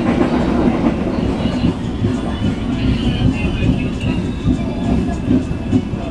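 Logawa passenger train running along the track: a steady rumble with the irregular clatter of the wheels over the rails.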